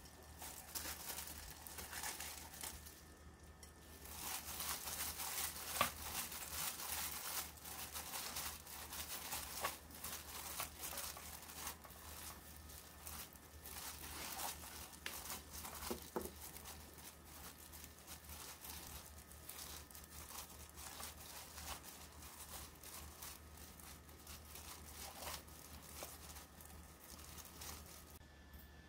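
Dried shredded squid being tossed and squeezed by hand in a pan of sauce off the heat, the disposable plastic glove crinkling and the strips rustling in a dense crackle. The crackle is busiest from about four seconds in and lighter in the second half.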